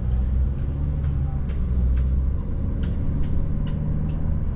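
Car engine and tyre noise heard from inside the cabin while driving: a steady low rumble, heavier for the first couple of seconds, with faint ticks about twice a second.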